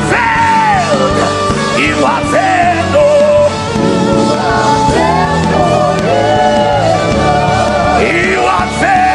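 Live gospel worship music: a band plays steadily under a lead voice singing loud, sliding, wordless ad-lib lines.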